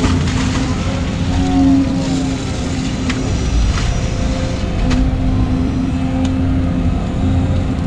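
Volvo EC220 excavator's diesel engine and hydraulics running under load from inside the cab, as the machine swings and dumps a bucket of wet pond mud. A steady hydraulic hum swells briefly early on, with a few light knocks later.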